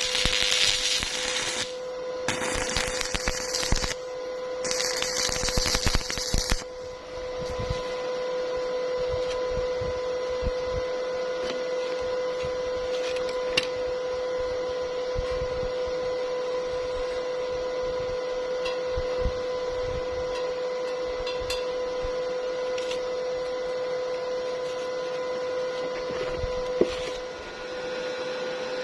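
Stick-welding arc crackling and hissing in several short runs for about the first six seconds, then a steady electrical hum with a high whine.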